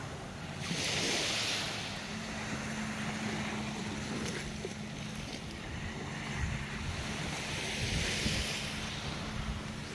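Small waves washing onto a sandy beach, two washes about seven seconds apart, with wind rumbling on the microphone. A steady low hum runs underneath from a couple of seconds in.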